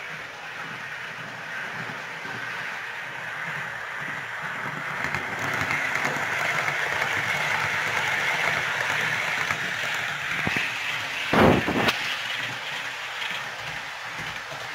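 Hornby Class 800 OO gauge model train running past: a whirring of its motor and wheels on the track that builds to its loudest as it passes close by and then fades. Two sharp knocks about half a second apart come near the end.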